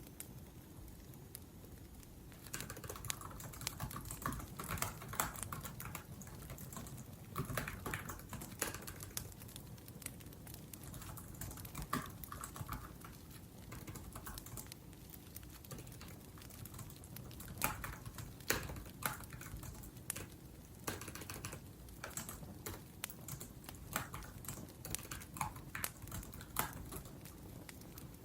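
Laptop keyboard typing in irregular runs of quick key clicks, starting about two seconds in, over a low steady crackle of a wood fire.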